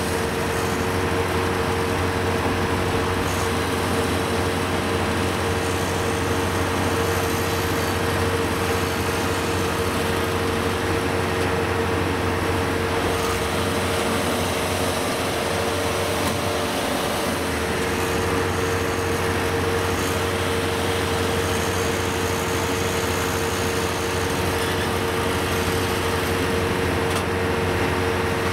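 Diesel engines of farm machines running steadily at an even, unchanging pitch during a tow, as a rice-hauling tractor pulls a combine harvester out of the mud.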